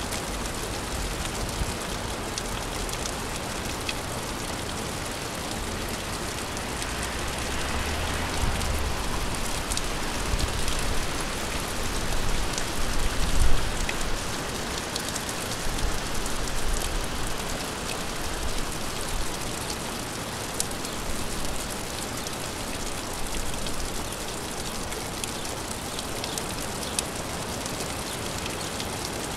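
Steady rain falling: a dense, even hiss with scattered individual drops ticking. A low rumble swells in the middle, loudest about halfway through.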